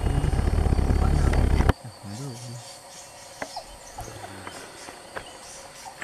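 Low rumble on the microphone that cuts off abruptly under two seconds in, leaving a steady high insect buzz with a few short chirps.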